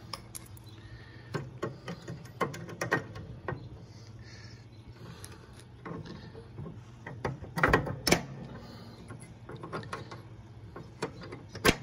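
Metal clicks, scrapes and knocks of pliers working a rear deck pin out of its bracket on a Toro Wheel Horse 14-38 HXL mower deck, with a cluster of louder knocks about eight seconds in and one more near the end.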